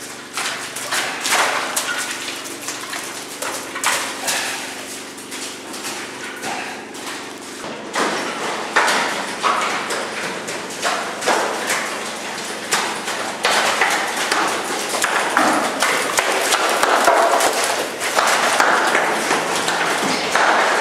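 Mountain bikes and riders' footsteps moving through a stone culvert with water on its floor: irregular knocks, clatters and splashing that echo off the tunnel walls, busier from about halfway through.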